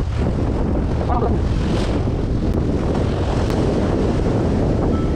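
Wind buffeting the microphone over surf breaking and washing against the rocks of a breakwater, a steady loud rush.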